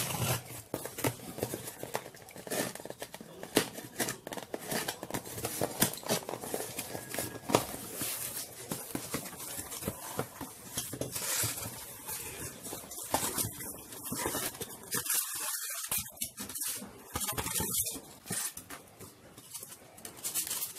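Parcel being opened: a box cutter slicing packing tape and cardboard, then cardboard flaps pulled back and styrofoam and bubble wrap handled, a run of irregular scrapes, rips and rustles.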